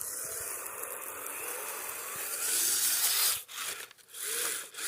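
Kyosho Blizzard RC snow vehicle's tracks and drivetrain churning and grinding in snow. It runs steadily at first, gets louder about two and a half seconds in, then breaks into short stop-start bursts of throttle with a motor whine that rises and falls.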